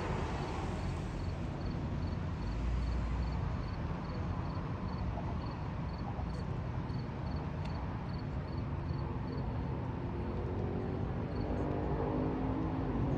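Street ambience: a steady low rumble of traffic with a fast, regular high-pitched ticking at about four ticks a second. A pitched engine hum rises near the end.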